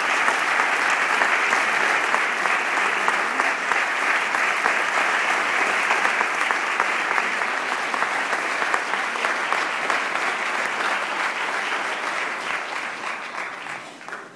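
Large theatre audience applauding, a dense, steady clapping that dies away over the last two seconds.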